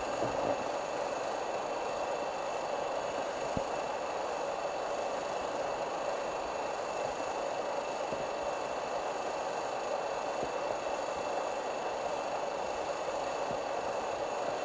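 Steady rushing of a river running close by, an even noise with no change, with one faint knock a few seconds in.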